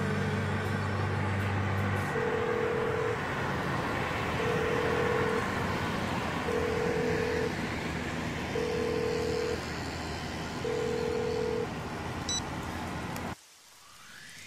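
Outdoor road ambience: a steady hiss of traffic noise, with a repeating electronic beep, one tone of about a second every two seconds, five times. The tail of background music fades out at the start, and the ambience cuts off abruptly near the end.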